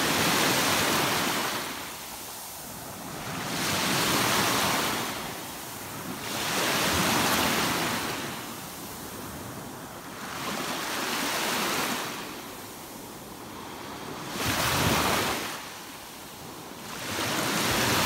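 Small sea waves breaking and washing up a sand-and-fine-pebble shore, the surf swelling and fading about every three to four seconds.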